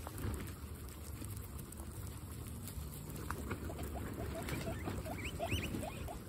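Several guinea pigs munching fresh grass: quick, crunchy chewing and the rustle of blades being pulled. From about halfway in there is a run of short rising squeaks.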